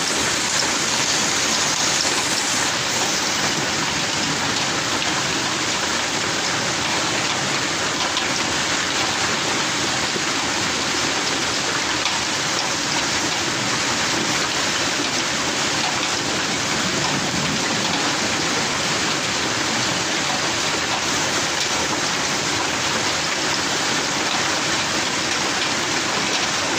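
Heavy hailstorm: hailstones falling hard on a corrugated roof and the ground, a dense, unbroken patter that stays steady throughout.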